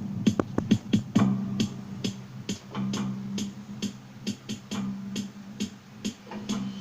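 Electronic background music with a drum-machine beat and a steady bass line.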